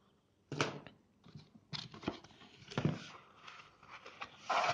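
Cardboard product box being handled and shifted about by hand: a series of irregular rustles, scrapes and light knocks.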